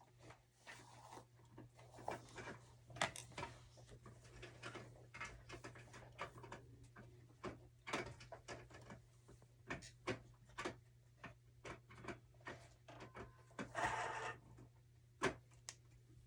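Scattered small clicks, taps and rustles of things being handled, over a steady low hum, with a longer rustle near the end.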